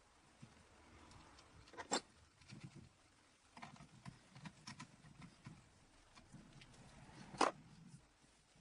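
Faint handling noises of hardware being worked on: scattered light clicks and rustling, with a sharper click about two seconds in and another near the end.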